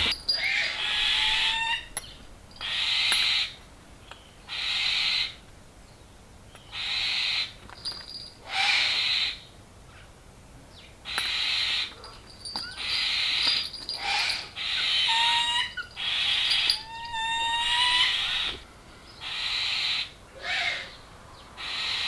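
Barn owl screeching: a long run of harsh, hissing screeches, each about a second long, repeating every one and a half to two seconds, typical of an imprinted owl calling for attention. Short rising chirps from another bird come in among the screeches.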